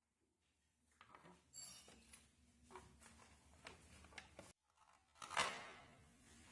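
Small cardboard retail boxes being handled: light rustles, taps and scrapes, with one louder scrape about five seconds in.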